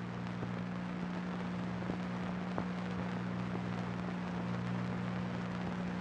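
Steady low hum over an even hiss, with a few faint scattered clicks: the background noise of an old film soundtrack.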